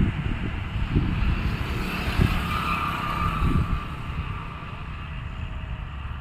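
Hira combine harvester running: steady engine and machinery noise with a heavy low rumble, easing slightly in the last couple of seconds.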